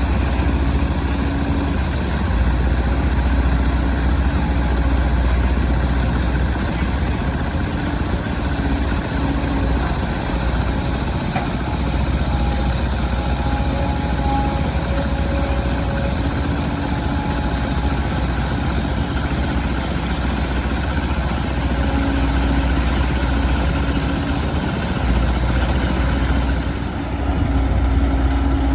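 Volvo EC200D excavator's diesel engine running steadily with a deep rumble, a faint tone rising and falling in and out above it.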